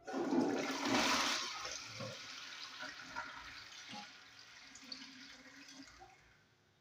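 Toilet flushing: a sudden rush of water, loudest for the first second and a half, then fading away over about five seconds.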